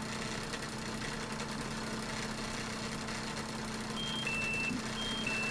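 Steady electrical hum, and about four seconds in a Turnigy Accucell 6 charger starts a high alarm beeping that alternates between two pitches about once a second. The alarm signals a connection error: the charger cannot read any voltage from the lithium-ion battery pack.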